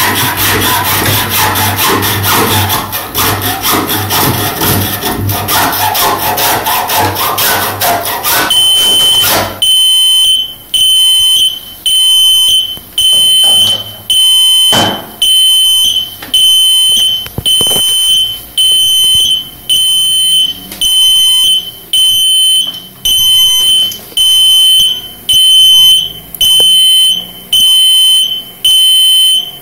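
A power cable being sawn through, with a steady low hum under the strokes, for about nine seconds; the hum stops as the cable parts. An alarm sounder then starts beeping, one high tone about once a second: the cable-theft detection on the motor protection panel has tripped.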